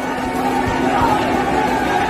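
Music mixed with the continuous din of a large crowd of protesters shouting.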